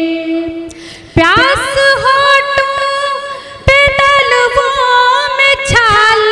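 A woman's solo voice singing a line of an Urdu ghazal into a microphone, with long held, ornamented notes. She breaks off just before a second in and comes back with an upward slide, then dips and starts another phrase about three and a half seconds in.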